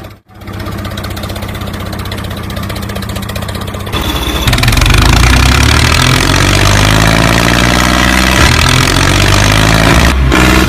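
Tractor diesel engine sound effect laid over the toy scene: an engine running steadily, then about four seconds in a louder, deeper engine working under load, its pitch slowly rising. It cuts off abruptly near the end.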